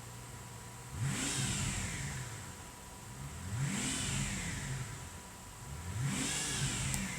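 Mercedes-Benz S600's V12 engine idling and revved three times, each rev rising and falling back to idle, running again now that its no-start fault has been fixed.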